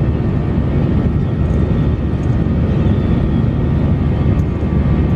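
Steady, loud cabin noise of an airliner in flight: the engines and airflow making a constant low rumble.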